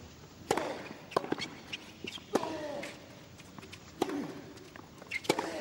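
Tennis rally on a hard court: a serve, then racket strikes on the ball back and forth, about one every second to second and a half. A player grunts with two of the shots.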